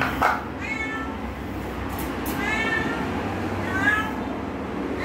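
A caged domestic cat meowing three times, short calls a second or so apart, eight hours after surgery. A short loud noise comes just before the first meow.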